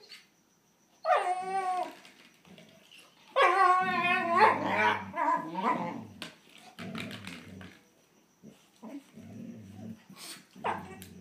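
German Shorthaired Pointers playing rough over a bone: two loud, high-pitched whining yelps about a second in and again near the four-second mark, then a run of lower, rougher dog vocalising and a short high yip near the end.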